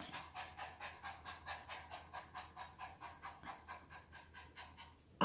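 A pet dog making faint, quick, even rhythmic sounds, about four a second, growing weaker near the end.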